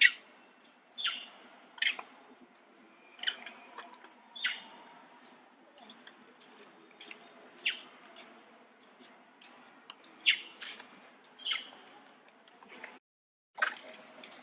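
Macaques giving repeated short, sharp, high-pitched alarm calls, about one a second, alarmed by a snake nearby.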